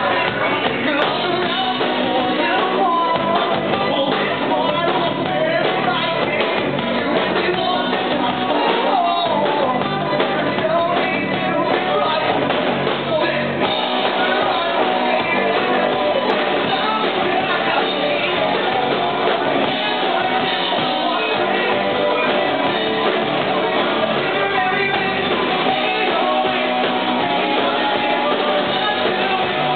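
A rock band playing live: distorted electric guitars, bass guitar and drum kit, with a singer, at a steady loud level with no breaks.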